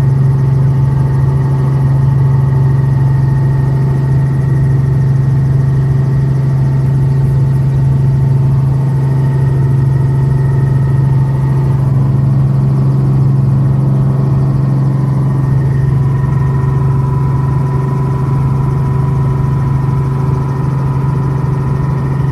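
Light helicopter's engine and rotors heard from inside the cabin: a loud, steady drone with a strong low hum. Its tone shifts slightly about halfway through.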